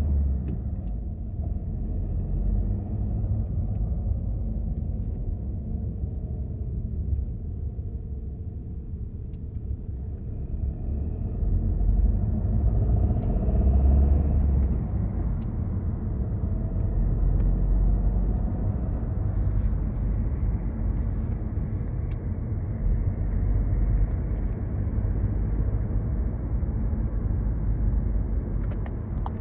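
Inside a car cabin on the move: a steady low rumble from engine and road that swells and eases, with faint ticks from the cockpit trim vibrating and rattling, the rattle fault the recording sets out to show.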